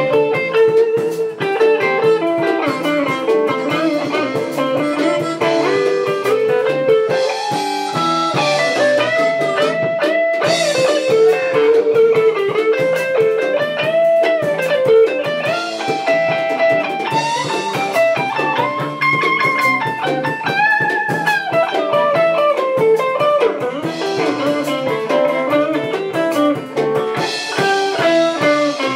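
Live band playing a bluesy instrumental passage: a lead electric guitar line with bent notes over rhythm guitar and bass.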